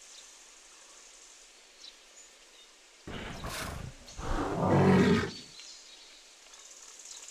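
An animal call, likely a sound effect: a short raspy breath followed by a louder, pitched growl, about three to five seconds in. It plays over a faint steady background hiss.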